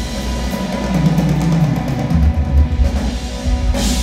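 Live rock band playing loud, with a rapid drum roll on the kit and a full-range cymbal crash just before the end.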